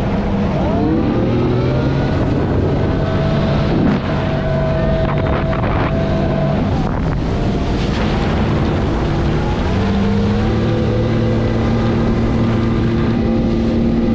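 Sea-Doo jet ski engine speeding up and then running at a steady cruising pace. The engine pitch climbs about half a second in and again about ten seconds in, with wind noise on the microphone.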